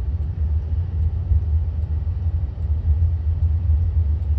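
Steady low road rumble inside the cabin of a moving car.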